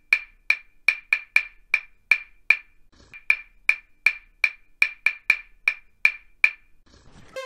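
Dance-track percussion of sharp wood-block clicks in a syncopated rhythm, two or three a second, with a short break about three seconds in; the clicks stop about six and a half seconds in.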